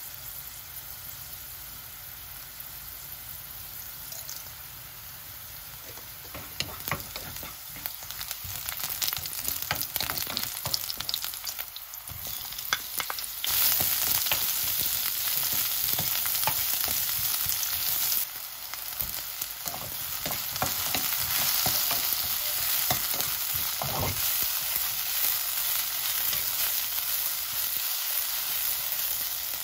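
Sliced garlic sizzling in olive oil in a nonstick wok, stirred and scraped with a wooden spatula that makes frequent small clicks. About halfway through, sliced onion goes into the hot oil and the sizzle turns clearly louder and stays that way.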